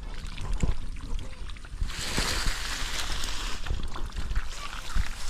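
Shallow muddy pond water sloshing and splashing as people wade and feel for fish by hand. A louder rush of splashing starts about two seconds in and lasts about a second and a half.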